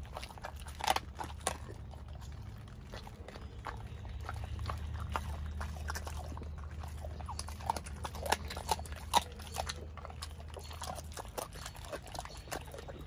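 Pit bull chewing raw chicken: irregular wet smacks and crunches with a few sharper cracks. A steady low hum underneath stops near the end.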